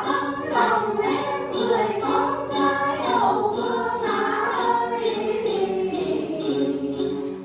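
Voices singing a song together over music with a steady jingling beat, about two strokes a second.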